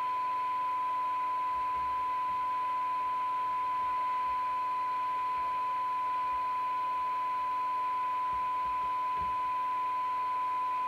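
Steady 1 kHz test tone with light hiss from a Midland 3001 FM CB radio's speaker: the signal generator's modulation is being received and demodulated while the receiver's IF transformers are aligned.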